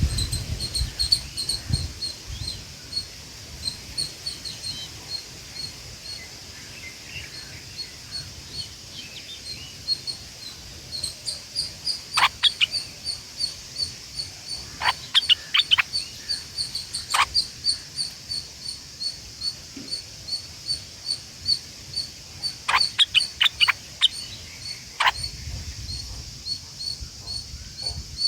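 Outdoor bird calls: sharp, quick notes falling steeply in pitch, some in short clusters of two to four, over a steady, evenly repeating high chirping like a cricket.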